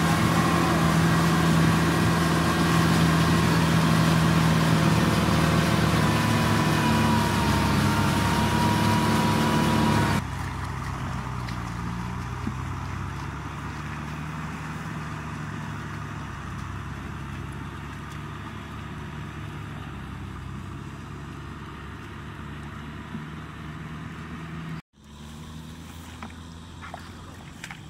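Tractor engine running steadily as it plows a flooded rice paddy, loud and close for about the first ten seconds. After a sudden cut it is fainter and farther off. Near the end the sound drops out for a moment, then returns quieter with a few faint clicks.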